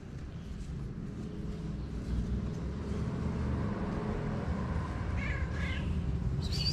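Tabby street cat meowing briefly about five seconds in, followed by a short higher-pitched call near the end, over a steady low background rumble.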